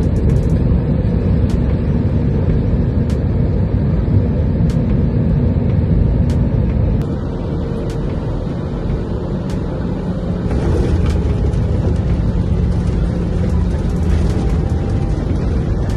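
Airliner cabin noise on the runway: a loud, steady low rumble of jet engines and rolling wheels heard from a seat over the wing, with faint light ticks a little under a second apart.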